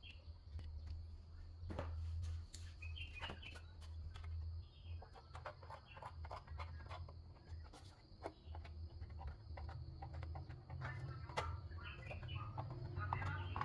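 Small birds chirping now and then, over a steady low hum, with scattered light clicks and knocks.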